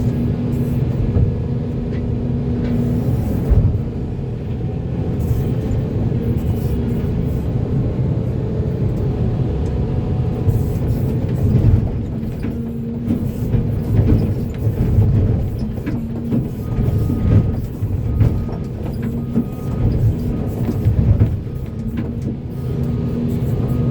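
Volvo EC480D excavator's diesel engine running under working load, its level swelling and easing as the machine works, with occasional knocks.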